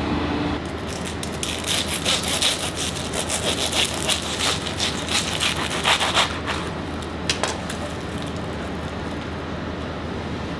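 A long knife sawing back and forth through a croissant on a plastic cutting board; the crisp, flaky crust crackles and rasps for about six seconds, starting about a second in. A couple of light clicks follow near the end of the cutting.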